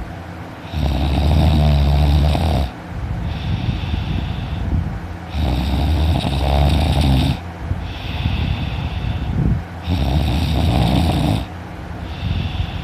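A man snoring loudly in his sleep: three long snores about four and a half seconds apart, with quieter breaths between them.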